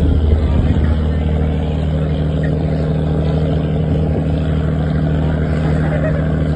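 Riverboat's diesel engine running steadily, a low even drone under wash and wind noise.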